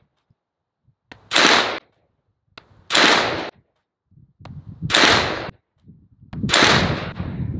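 Four single shots from a 9mm AR-9 pistol with an 8.5-inch barrel, firing Hornady 135-grain Critical Duty FlexLock rounds. The shots are slow, aimed fire about one and a half to two seconds apart, and each sharp crack dies away within about half a second.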